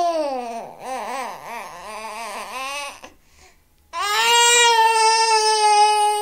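Baby crying: a wail that trails off, then about two seconds of wavering, sobbing cries, a short pause, and a long, loud wail held at a steady pitch from about four seconds in.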